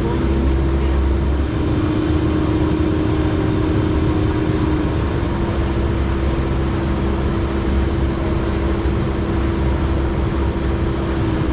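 An engine running steadily, with a constant low rumble and a held hum.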